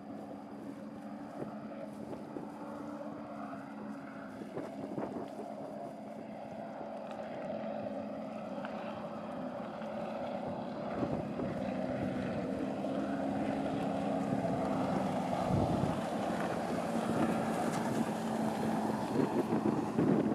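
Motorboat engine droning steadily and slowly growing louder, with wind buffeting the microphone.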